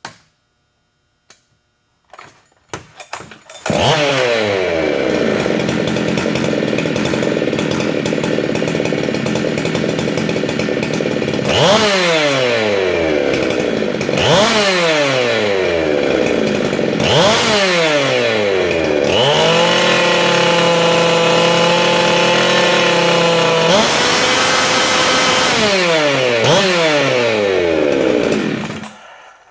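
Modified Husqvarna 390XP two-stroke chainsaw, with a decked cylinder, ported intake, exhaust and transfer ports and advanced timing, firing up about three and a half seconds in. It then runs loud and is revved again and again, holding one steady pitch for a few seconds past the middle. It shuts off near the end.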